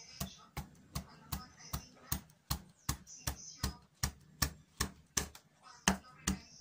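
A 12 mm half-round woodcarving gouge cutting a channel into a wooden board in quick short strokes. Each stroke gives a sharp knock, nearly three a second, in an even rhythm.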